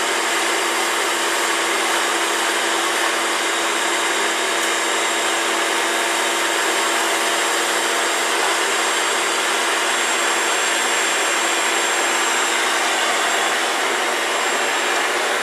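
Vacuum cleaner running steadily at a constant pitch; it sounds like the vacuum needs cleaning.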